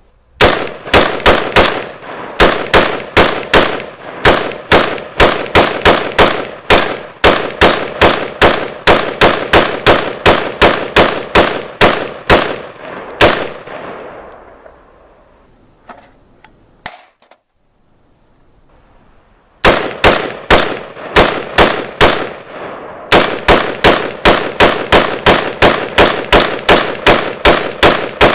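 AR-15 pistol with a 10.5-inch barrel, firing 5.56x45 in rapid semi-automatic fire at about three shots a second. The first string stops about halfway through, followed by a pause of roughly six seconds with a few faint clicks. A second rapid string then runs to the end.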